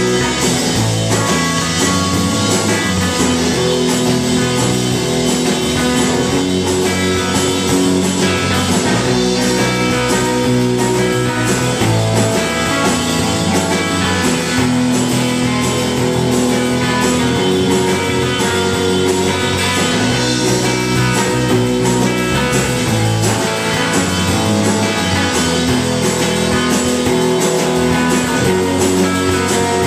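Live rock band playing at a steady loud level: electric guitar, bass guitar and drum kit.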